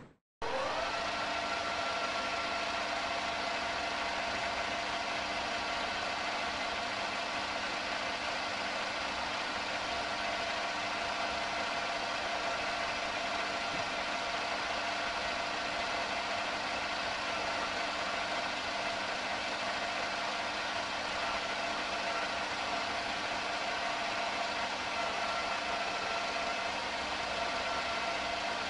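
Mini lathe running at a steady speed, its motor and gear train giving an even whine with several constant tones while the tool cuts the cone of a silencer baffle. It starts about half a second in.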